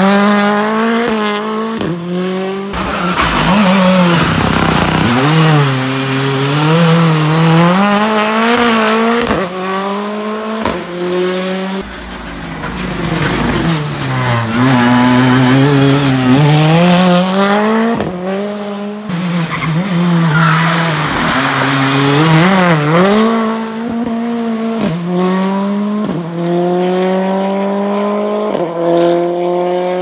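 Hyundai i20 R5 rally car's 1.6-litre turbocharged four-cylinder engine revving hard as it slides through corners on a loose surface. The pitch climbs and drops over and over with gear changes and lifts, and the sound breaks off abruptly several times.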